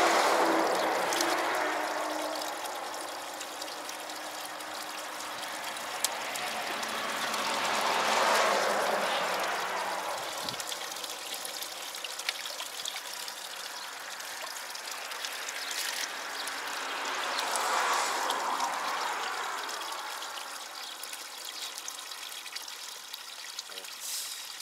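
Water running steadily from a tap as containers are filled, swelling louder and easing off three times.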